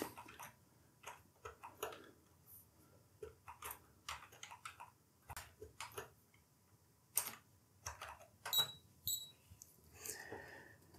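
Faint keystrokes on a Sinclair QL keyboard as a command is typed: a run of irregular soft clicks, with a few sharper clicks in the second half.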